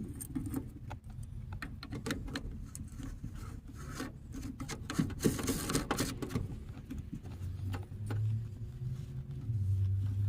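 Hands fitting and handling small parts while mounting an oil pressure gauge: scattered light clicks, taps and rubbing, with a short rustle a little past halfway. A low drone comes up near the end.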